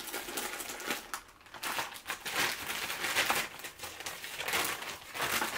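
Plastic bag crinkling and rustling as it is pulled out and handled, in a run of irregular crackles.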